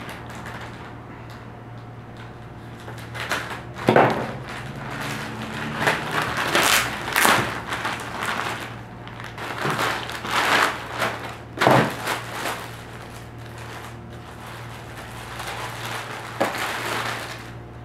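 Plastic parcel packaging crinkling and rustling in irregular bursts as a plastic mailer bag is cut and pulled open and a clear plastic bag is handled.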